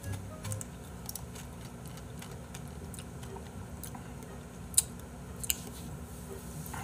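Quiet room tone with scattered faint ticks and two sharp clicks a little under a second apart about five seconds in, from the plastic tube of a Ppongtta slush ice pop being handled and squeezed.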